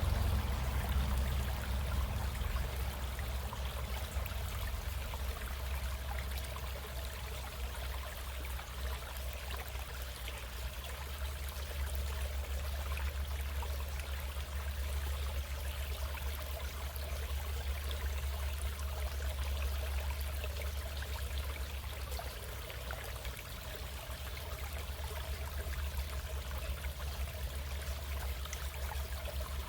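A stream of running water flowing steadily, with a low rumble underneath.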